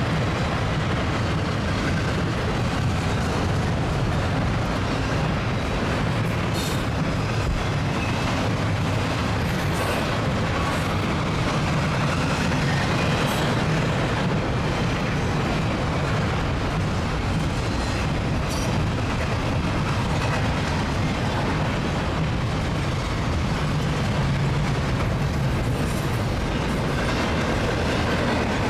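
CSX double-stack intermodal freight train rolling past: a steady rumble of wheels on rail, with a few sharp clicks now and then as the cars go by.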